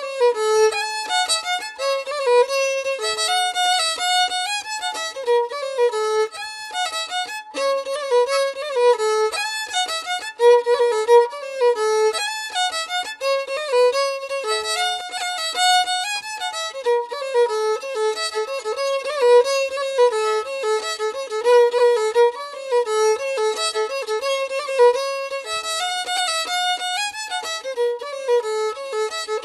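Background music: a solo violin playing a melody of quick, short notes, with no accompaniment underneath.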